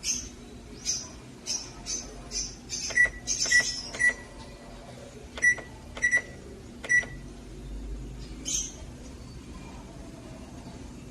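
Buttons on a Sharp automatic washing machine's control panel being pressed: a run of plastic clicks, six of them, about three to seven seconds in, each with a short high beep. This is the panel being set to run a spin-only cycle.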